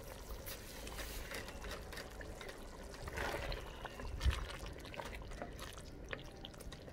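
Wooden spatula stirring thick chickpea gravy in a clay pot: faint wet slopping with small scrapes and ticks, and a soft thump about four seconds in.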